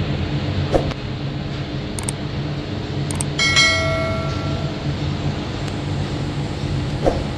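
Workshop machinery running with a steady low hum, with a few light knocks and one ringing clang of struck metal about three and a half seconds in.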